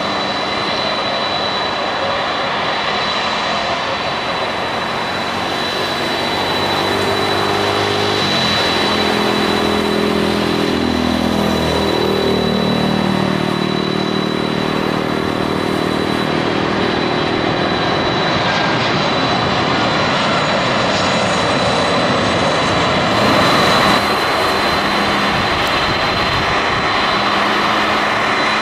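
Boeing 747 freighter's four jet engines at takeoff power, a loud steady rush with a high whine. Lower engine tones shift and dip in pitch around the middle as the jet goes by.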